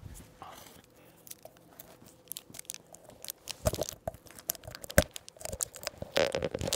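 Irregular crunching, crinkling rustle with sharp clicks from cloth being handled right against the microphone. It is sparse at first and gets busier and louder from about halfway in.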